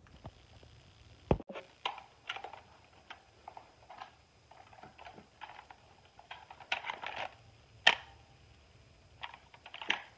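Plastic clicks, taps and knocks from hands handling a Power Rangers Power Morpher toy. Two sharper snaps stand out, one just over a second in and one about eight seconds in.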